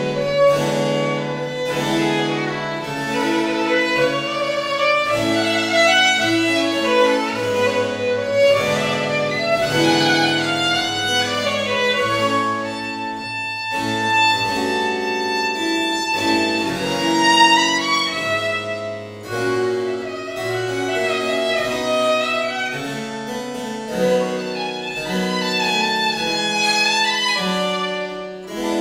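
Baroque violin playing a slow Largo melody with long bowed notes, accompanied by harpsichord.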